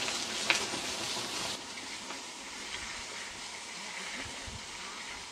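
Mountain bikes rolling past on a dirt trail: a steady hiss of tyres on dirt, with one sharp click about half a second in. The hiss drops off about a second and a half in as the bikes move away.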